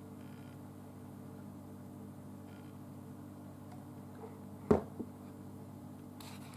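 A steady, low electrical hum, with a sharp knock about four and a half seconds in and a lighter one just after.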